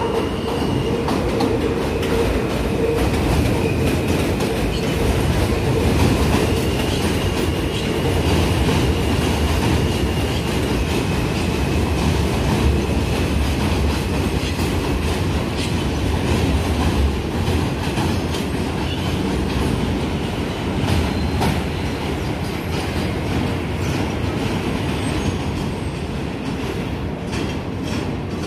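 New York subway train running on elevated steel track, a continuous rumble of wheels with clacking over rail joints. A thin wheel squeal rings out through roughly the first third, and sharper clicks come near the end as the train moves off.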